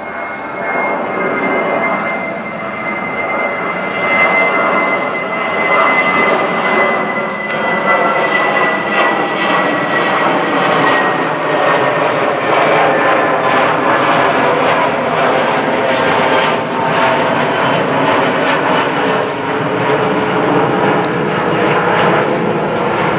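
Airbus A320-family twin-jet airliner climbing out after take-off and passing overhead: a steady jet roar with a high whine that slowly falls in pitch over the first ten seconds or so.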